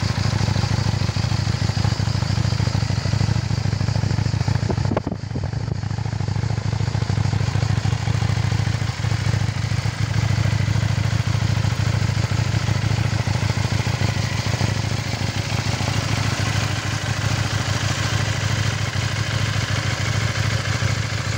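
KTM 790 Duke's parallel-twin engine idling steadily in neutral, with a brief drop in level about five seconds in.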